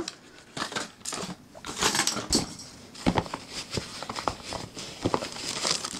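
Rummaging in a cardboard box of packaging: paper rustling with irregular light scrapes, clicks and knocks.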